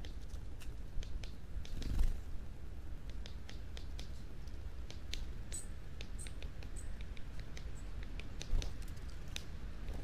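Small birds such as great tits feeding among dry fallen leaves: scattered sharp ticks and a few thin, very high calls around the middle, over a low rumble. Two dull thumps, about two seconds in and near the end, are the loudest sounds.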